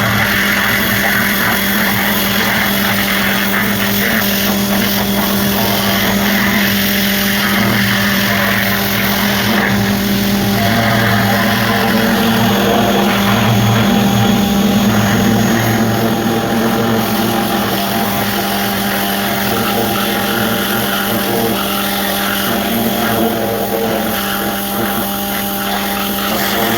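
A motor-driven machine running steadily, a constant hum with a hiss over it.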